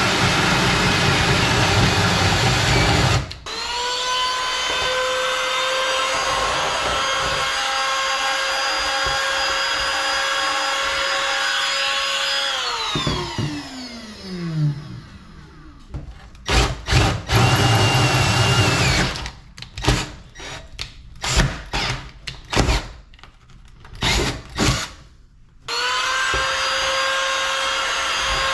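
Power drill boring a hole through a fiberglass boat panel: rough grinding at first, then a steady motor whine that winds down about halfway through. A run of short trigger bursts follows, and the drill runs steadily again near the end.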